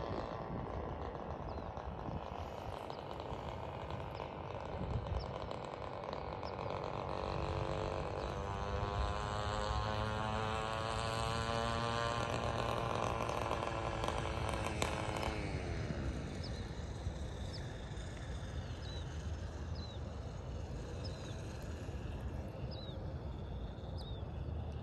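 A motor vehicle drives past: its engine note builds and slowly rises in pitch, then drops sharply in pitch as it goes by, a little past the middle. After that a bird gives short high chirps, about one a second.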